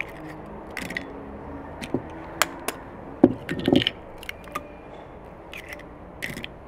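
Eggs being cracked against a bowl and dropped in: a scattered series of sharp taps and clicks, with the loudest cluster about three seconds in.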